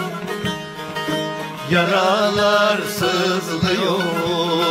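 Bağlamas (long-necked Turkish saz lutes) playing a Turkish folk tune, with a man's voice coming in singing a line about two seconds in.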